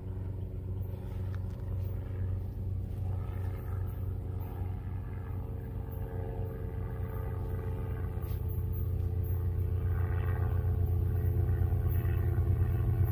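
Diesel locomotive engines of an approaching Florida East Coast freight train, a steady low rumble that slowly grows louder as the train nears.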